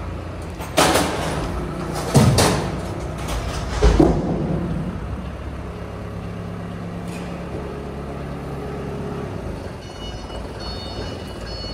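Loud metal bangs and clanks, four in the first four seconds, ringing briefly in a steel shipping container as a briquette extruder is loaded, over the steady low rumble of an idling diesel engine.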